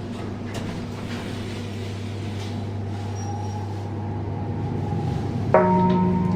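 Lift car running between floors with a steady low hum. About five and a half seconds in, a single pitched chime rings out, the lift's arrival signal at the next floor.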